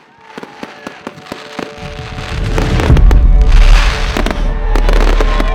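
Fireworks going off in a series of sharp bangs and crackles. Music with a heavy bass fades in about two seconds in and grows loud over them.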